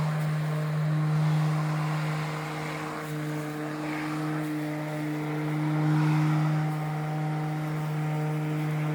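Ryobi ONE+ 13-inch cordless battery lawn mower running: a steady electric motor and blade hum that swells and eases a little.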